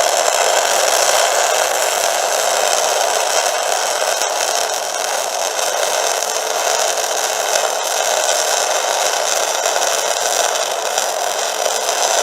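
Welding arc running steadily with a dense hiss and fine crackle, picked up by a stainless-steel welding microphone close to the weld.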